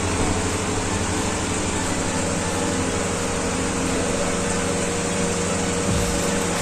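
A machine running steadily: an even hiss with a low hum under it.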